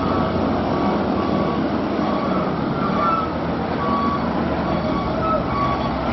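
Heavy six-wheel tanker truck's diesel engine running with a deep, steady rumble as the truck manoeuvres slowly through a hairpin bend. Short high electronic beeps sound on and off over it, at two slightly different pitches.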